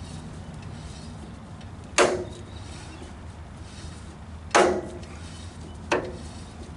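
Three sharp metal clunks from the ER32 collet chuck and its cast-iron backing plate being handled on the lathe spindle: one about two seconds in, another about two and a half seconds later, and a softer one near the end. They come while the fit of the plate on its newly machined register is being checked, a firm fit with slight play.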